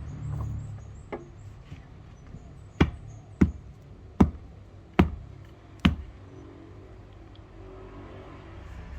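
Five sharp knocks on wood, each under a second apart, with a fainter knock about a second in.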